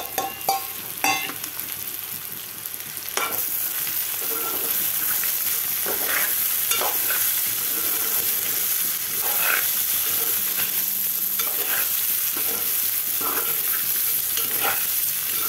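Fried peanuts and roasted chana dal tipped from a steel tin into a pan of frying ivy gourd, pattering in with a few clicks. From about three seconds in, a metal spatula scrapes and stirs through the mix in repeated strokes over a steady sizzle.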